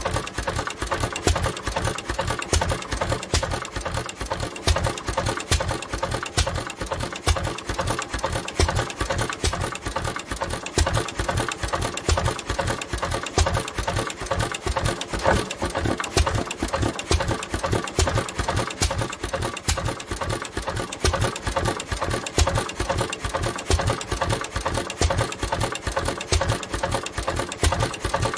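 An International Harvester Type M 3 HP hit-and-miss engine running with a steady, rapid clatter and a louder beat every couple of seconds. It is running with a stuck crankcase breather.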